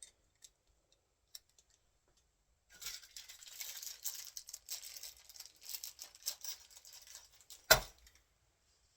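Packaging rustling and crinkling as it is rummaged through for about five seconds, after a few faint clicks, then one sharp knock, the loudest sound.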